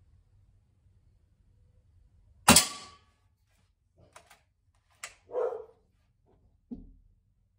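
One shot from a .177 Reximex Ixia PCP air rifle about two and a half seconds in, a sharp crack with a short ringing tail. It is followed by a few lighter clicks and a short rattle as the rifle's lever is worked for the next pellet.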